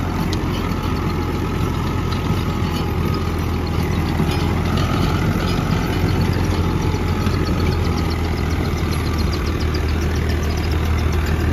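Eicher 333 tractor's three-cylinder diesel engine running steadily under load, driving a PTO rotavator that churns through dry soil.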